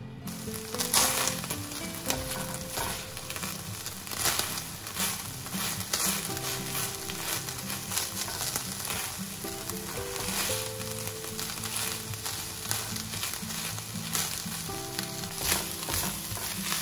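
Thin strips of beef sizzling in a frying pan, stirred and scraped around with a spatula. The sizzle cuts in suddenly just at the start, with light background music underneath.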